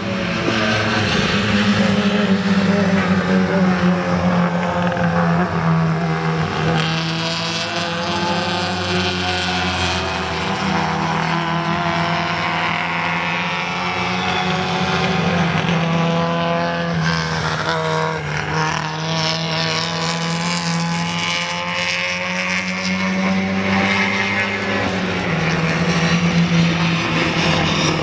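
Classic Mini race cars' four-cylinder engines running hard around the circuit, the engine notes rising and falling several times as cars go by and change gear.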